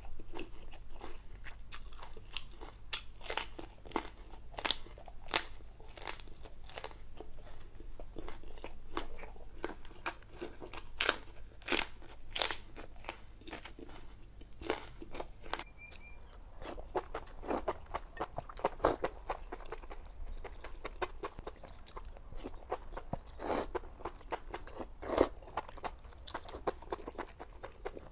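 Close-miked eating: crisp crunching bites and chewing, irregular and continuous, with a few louder crunches scattered through.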